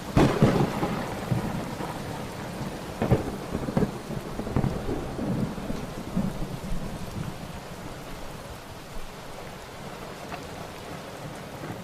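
Thunderstorm: thunder rumbling over steady rain, with sharp cracks near the start and about three seconds in, the rumble easing in the second half.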